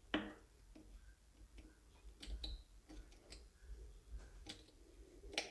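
Faint, irregular clicks and scratches of a small metal pick scraping built-up crud off a tractor's battery terminal connections.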